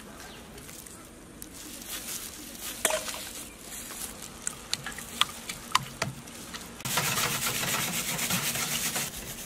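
Wire whisk beating raw eggs in a steel bowl. First it clinks now and then against the bowl, then about seven seconds in it starts fast, steady whisking, a loud rapid scraping and slapping.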